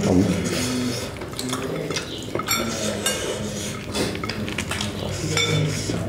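Plates and bowls clinking and scraping lightly as people eat rice with their hands, in a string of small irregular clicks.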